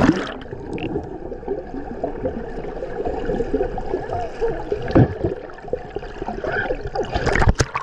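Sea water gurgling and sloshing with bubbling, and a couple of sharper splashes or knocks, one about five seconds in and one near the end.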